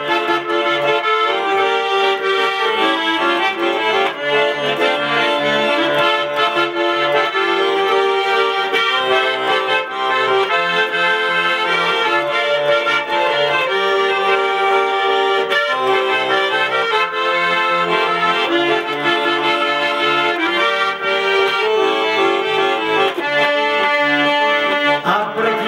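Russian garmon (button accordion) playing an instrumental interlude, a melody over a steady rhythmic bass-and-chord accompaniment.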